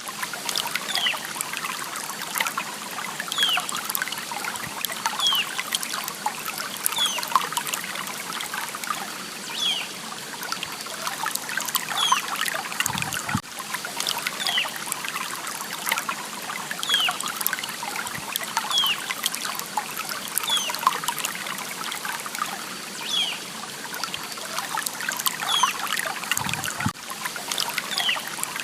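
Water trickling and babbling in a small stream, steady throughout. A bird repeats a short falling call about once a second over it.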